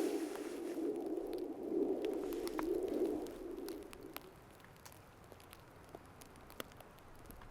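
A low cooing bird call that fades out about four seconds in, with scattered small crackles and clicks.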